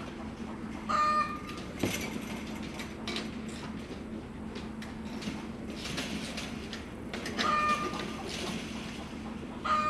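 Chickens calling with three short clucks, one about a second in and two near the end, over a steady low hum, with scattered knocks and rustling.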